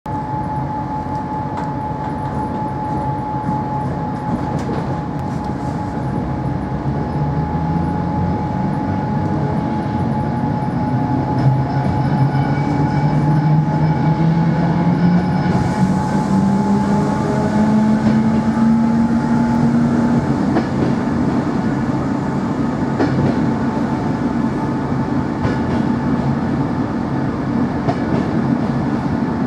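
ČD class 460 electric multiple unit heard from inside a passenger car while under way: a steady rumble of wheels on rails, with a constant high whine. From about a quarter of the way in to about two-thirds through, a lower whine rises steadily in pitch as the unit picks up speed.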